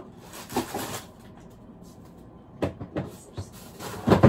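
Frozen food packages being handled in an open freezer: rustling bags and a few knocks, the loudest near the end.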